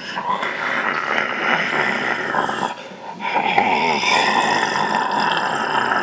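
Two long, rasping zombie-style growls, the second beginning about three seconds in after a short break.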